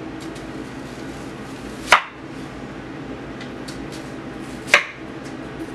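Kitchen knife slicing through an onion and striking the cutting board, two sharp chops about three seconds apart with a few faint ticks between, over a steady low background hum.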